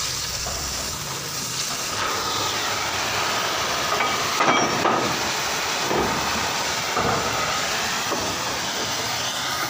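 Oxy-acetylene cutting torch hissing steadily as its oxygen jet cuts through steel plate. A few short metallic knocks come around the middle.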